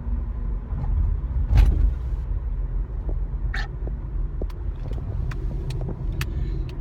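Steady low rumble of a car heard from inside the cabin, with one louder sharp thump about a second and a half in and a few faint clicks.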